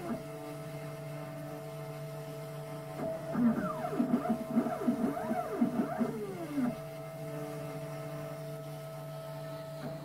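The DIY CNC router's 500-watt spindle runs with a steady hum while it cuts into insulation foam. From about three to about six and a half seconds in, the stepper motors whine in quickly rising and falling pitches as the gantry moves.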